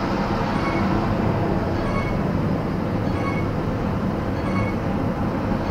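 Steady road and tyre noise with engine hum inside a moving Toyota RAV4 Adventure's cabin. A faint, short, high tone repeats about every 1.3 seconds.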